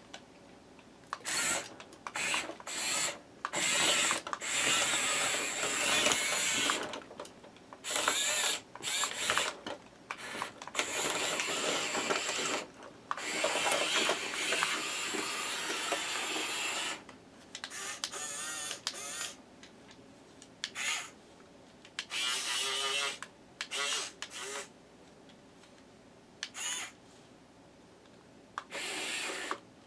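Huina 1510 toy RC excavator's small electric motors and plastic gearboxes running in repeated short bursts as the arm and bucket are worked in dirt. The weak digging arm's gears skip when it meets resistance.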